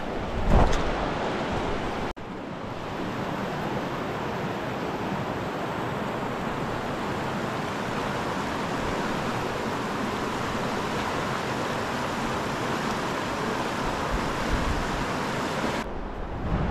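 The South Platte River rushing steadily, its flow running a little high. A gust of wind hits the microphone about half a second in, and the sound drops out abruptly for an instant about two seconds in.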